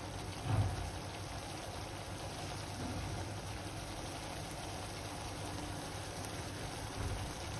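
Thick masala gravy simmering in a kadai on a medium gas flame, bubbling steadily as the oil begins to separate. There is a soft low thump about half a second in.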